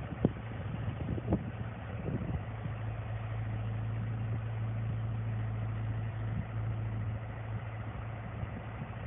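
Diesel engine of a CAT 313C track excavator idling steadily, with a few sharp knocks in the first two seconds.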